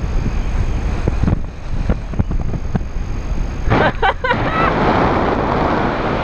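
Wind rushing and buffeting over an action camera's microphone during paraglider flight, loud and uneven. A few short high chirps break through about four seconds in.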